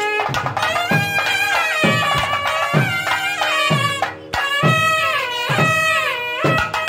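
Traditional South Indian temple music: a reed wind instrument playing a gliding, bending melody over drum strokes that fall about once a second.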